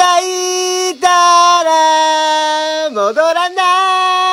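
A voice singing long held notes: a note of about a second, then a longer note of about two seconds that sags slightly in pitch, and a short dip and break before another held note near the end.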